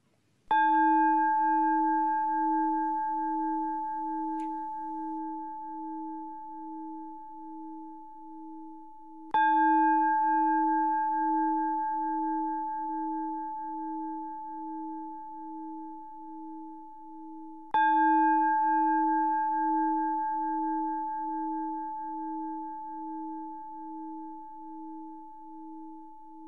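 A Buddhist bowl-shaped temple bell struck three times, about eight to nine seconds apart, marking the close of the nembutsu chanting. Each strike rings on in a long tone with a slow, pulsing waver, fading gradually.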